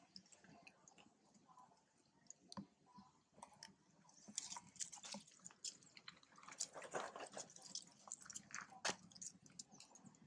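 Faint, irregular clicks and crackles from long-tailed macaques moving and eating among dry leaves, thickest from about four to nine seconds in.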